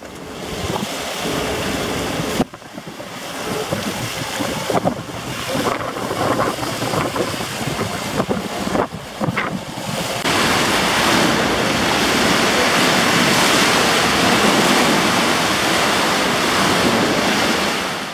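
Water sloshing and splashing in a ship's open-deck pool and hot tub as the ship moves in a rough sea, with wind rushing over the microphone. It becomes louder and steadier about ten seconds in.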